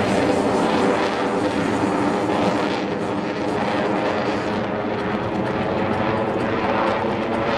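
Lockheed Martin F-22 Raptor's twin Pratt & Whitney F119 turbofan engines running loud as the jet flies overhead. The high hiss dulls about halfway through while the deep roar carries on.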